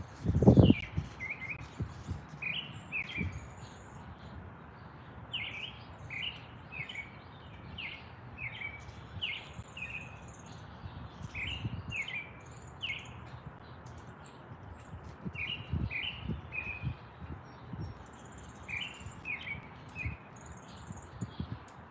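Songbirds chirping: short, quick chirps repeated in little runs of two to four, with fainter high twittering above them. A loud low thump about half a second in, and a few softer low thumps later.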